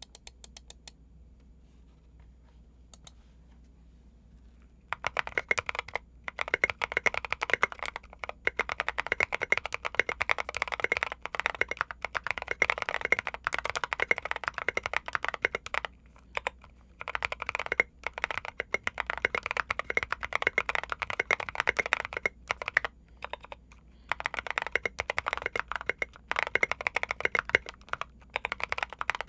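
Typing on a Keychron Q3 mechanical keyboard with lubed Gazzew Boba U4T tactile switches and Maxkey SA doubleshot ABS keycaps, tape-modded and force-break-modded. A few faint single keystrokes at first, then fast continuous typing from about five seconds in, broken by short pauses.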